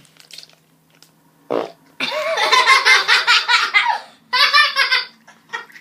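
Two loud bursts of a child's high-pitched vocal noise, each a rapid run of pulses: a longer one about two seconds in and a shorter one near the end.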